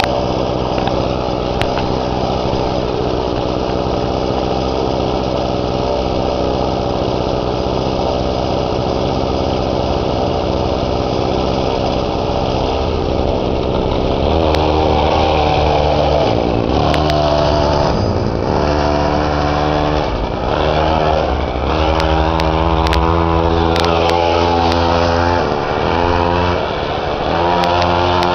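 Small gas engine of a homemade friction-drive motorized bicycle idling steadily, then from about halfway through revving up and down in repeated surges as the bike pulls away under load.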